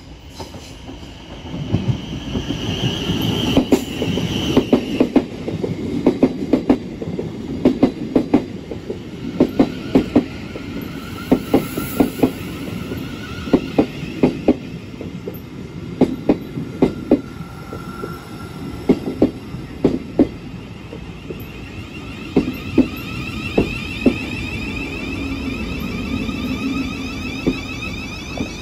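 Two coupled Class 707 Desiro City electric multiple units passing close by at low speed. Their wheels clack in close pairs over rail joints and pointwork, over a steady rumble, with a high wheel squeal in the first few seconds.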